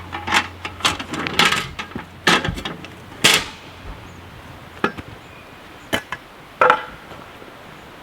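Irregular knocks and clatters of camp gear being handled, coming thick and fast for the first three and a half seconds, then a few single knocks, one of them with a short metallic ring.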